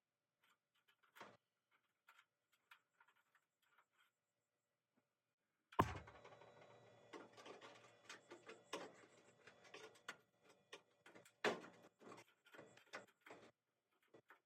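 Faint workshop handling sounds: light scattered clicks, then a sharp knock about six seconds in, followed by a faint steady hum under a run of knocks and rattles of metal being handled.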